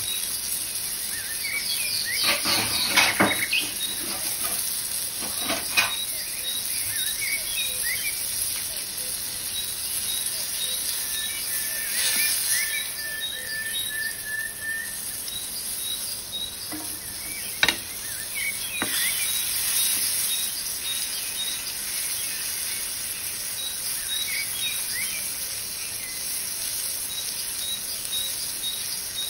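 Nature sound track of birds chirping over a steady high insect and cricket hiss. It is broken by a few sharp knocks about three, six and eighteen seconds in.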